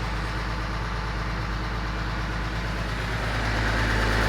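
BMW M54 3.0-litre straight-six engine running, with a fast, even knocking beneath the hum; the shop suspects a connecting rod knocking on a spun big-end bearing. It gets a little louder near the end.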